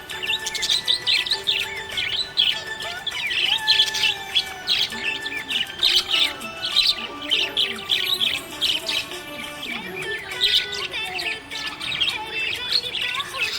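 Budgerigar chirping in a quick, unbroken run of short high chirps.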